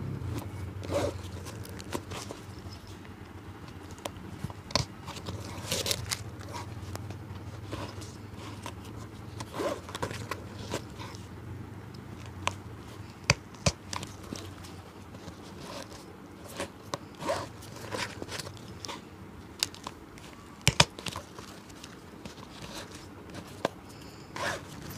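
Irregular small clicks, taps and short scrapes of a cobbler handling and working on a shoe, over a low steady hum.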